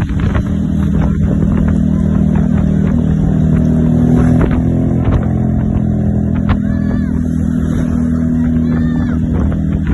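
A vehicle engine running steadily close by, with a few short high rising-and-falling calls about two-thirds of the way in and near the end.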